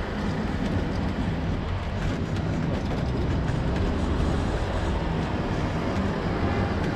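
Steady, mostly low-pitched road and ride noise from inside an open-sided passenger tram cart moving along a paved road, its tyres rolling and air rushing past the open sides.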